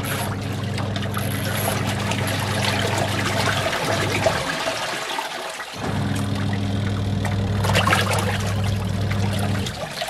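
Twin-tub washing machine (Ramtons 10 kg) wash tub agitating water with no clothes in, mixing in fabric softener. The motor hums steadily under churning, sloshing water. It pauses for under two seconds about four seconds in, as the pulsator switches direction, starts again, and stops once more near the end.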